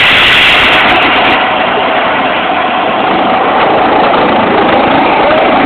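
Air ambulance helicopter running loud and steady on the ground before take-off, a faint steady whine over dense engine and rotor noise.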